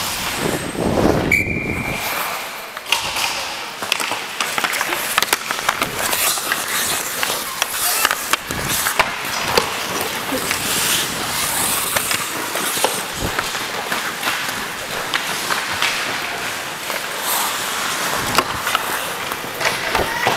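Ice hockey skates carving and scraping across rink ice at speed, with scattered sharp clicks and knocks. A brief steady high tone sounds about a second and a half in.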